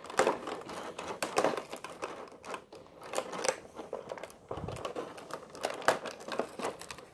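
Clear plastic packaging crinkling and crackling irregularly as hands work a small cardboard card box free of it.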